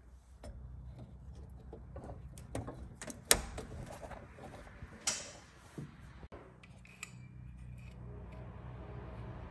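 Sharp clicks from a home breaker panel's circuit breakers being switched and a wall thermostat dial being turned. The loudest snap comes about three seconds in, another about two seconds later, over a low steady hum.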